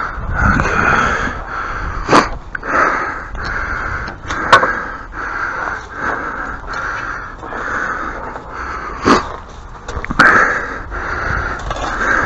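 Hand tool scooping out broken brick rubble: four sharp knocks stand out over a rasping sound that pulses about twice a second.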